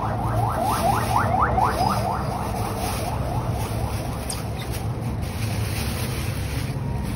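A rapid series of short rising chirps, about five a second, fading out about three seconds in, over a steady low hum.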